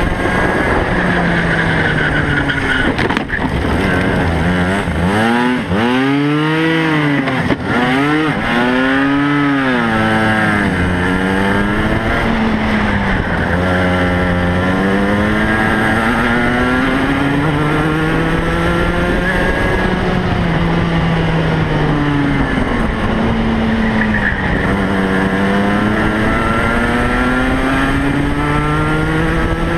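Racing kart engine heard from on board, revving up along the straights and dropping in pitch when lifting off for the bends. About a quarter of the way in there are several quick rises and falls in quick succession through a run of corners, then longer steady climbs.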